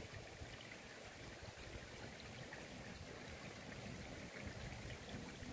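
Faint, steady trickle of water flowing in a shallow stone-lined irrigation ditch.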